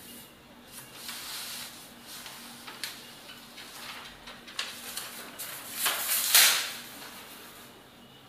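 Household cleaning noises at a kitchen window: rubbing and scraping against the glass and frame, with a few sharp clicks and a louder scrape or slide about six seconds in. A faint low hum runs underneath.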